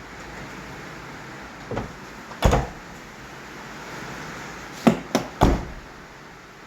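Several sharp knocks and clicks from a car door and its trim being handled: one loud knock about two and a half seconds in, then three quick knocks close together near the five-second mark, over a steady background hiss.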